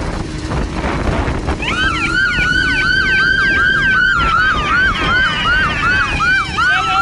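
Police car siren in yelp mode: rapid rising sweeps, about three a second, starting about a second and a half in, over a low road rumble.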